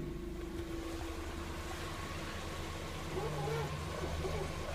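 Car steering squeaking as the wheel is turned, over the engine idling; from about three seconds in come repeated squeaks that rise and fall in pitch.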